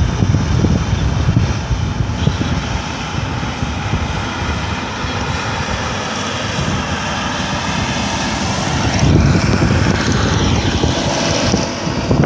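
Engine of a rice harvesting machine running steadily: a low rumble with a faint whine above it.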